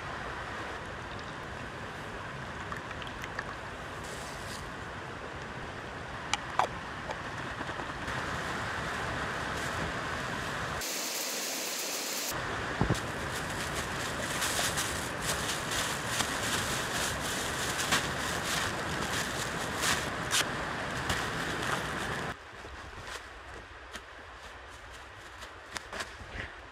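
Steady rushing of a snowbound creek, with scattered sharp clicks over it; the rush drops to a quieter hiss near the end.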